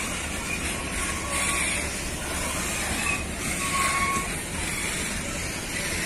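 Loaded freight train's boxcars and hopper wagons rolling past, a steady noise of steel wheels on rails, with a few brief high squeals.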